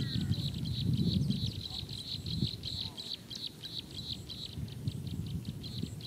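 Steady run of short, high chirps, several a second without a break, over a low rumbling background noise that is strongest in the first second or so. A few fainter gliding bird calls come near the start.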